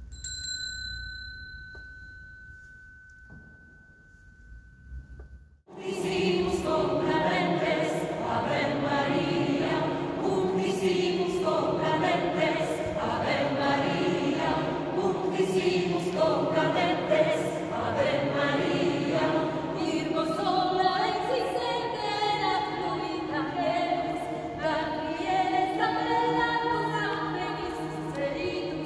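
A single struck bell-like tone rings and slowly fades for about five seconds, then a mixed choir suddenly begins singing and carries on to the end.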